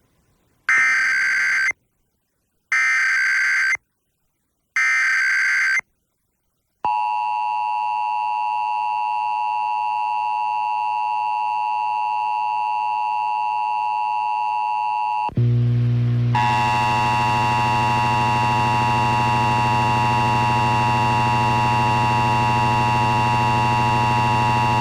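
Emergency Alert System test tones off an FM radio broadcast. First come three one-second bursts of the SAME header's digital data tones, with short silences between. Then the steady two-tone EAS attention signal sounds, and about two-thirds of the way through a low hum joins it.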